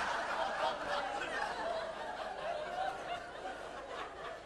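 Theatre audience laughing at a joke, the crowd laughter fading away gradually with a few individual laughs lingering.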